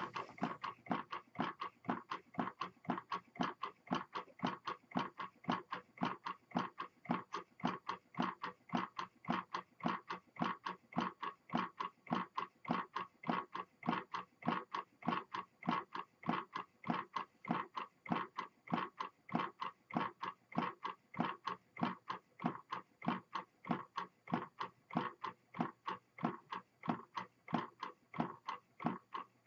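Homemade horizontal pop-can Stirling engine running, making a steady, even clicking of about three clicks a second.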